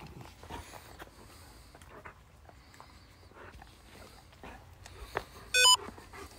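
A dog moving about and snuffling, with faint rustling and steps, then a short, loud, high-pitched squeak a little over five and a half seconds in.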